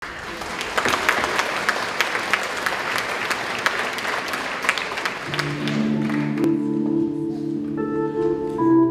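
Audience applauding, dying away a little after five seconds as the orchestra begins playing soft sustained chords.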